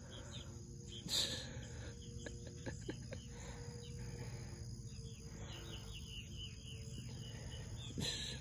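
Outdoor ambience of insects trilling steadily at a high pitch, with a run of short bird chirps in the second half. Two brief rustles stand out, about a second in and near the end.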